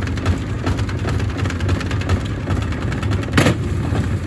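Gorenje SensoCare washing machine running with heavy bricks in its drum: a steady low drone with repeated knocks, and one loud bang about three and a half seconds in.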